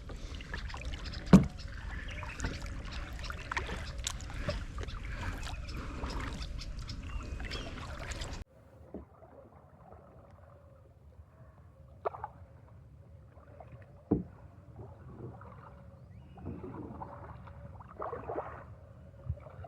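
Kayak being paddled: paddle blades dipping and splashing with water dripping, and a few sharp knocks of the paddle against the kayak. Wind rumbles on the microphone for the first eight seconds, then cuts off suddenly, leaving quieter strokes and knocks.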